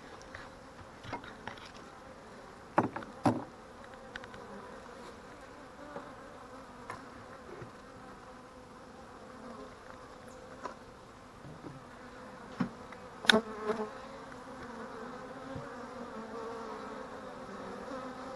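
Honey bees buzzing at an opened hive: the steady hum of an active colony, with a few sharp knocks about three seconds in and again about thirteen seconds in.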